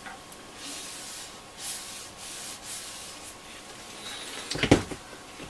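A cloth rubbing Danish oil into the teak panels of a wooden radio case, heard as several separate soft swishing strokes. A couple of sharp knocks come close together near the end.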